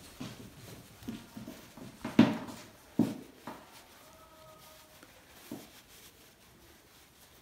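Rustling and a few soft knocks as a wild rag scarf is pulled snug around the neck; the two loudest knocks come about two and three seconds in.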